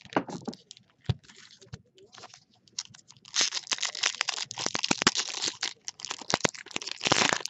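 Trading-card packaging being torn open and crinkled, with sharp clicks and crackles that become dense and continuous from about three seconds in.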